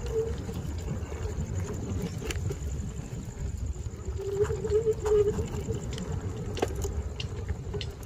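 Electric kick scooter riding over a rough dirt track: a steady low rumble of the tyres and wind on the microphone, with scattered clicks and rattles from the frame over bumps. A wavering whine comes and goes, strongest about halfway through.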